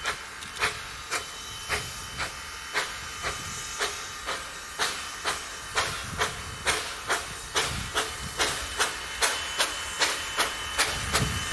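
Exhaust beats of a two-foot gauge steam locomotive working, WW&F No. 9 lettered as Sandy River & Rangeley Lakes No. 6: sharp, even chuffs about two a second, quickening a little toward the end as it gathers speed, over a steady steam hiss.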